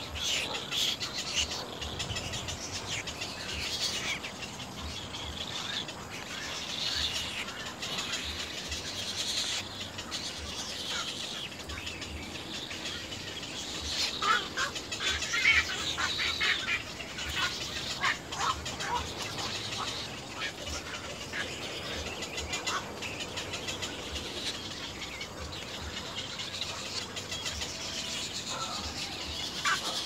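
Little egret chicks calling at the nest: a steady run of short, rapid begging calls that grows busiest and loudest about halfway through.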